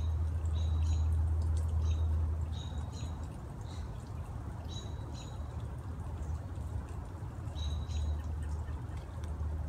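A small bird chirping outdoors: short, high chirps, often in quick pairs, repeating every second or two, over a steady low rumble.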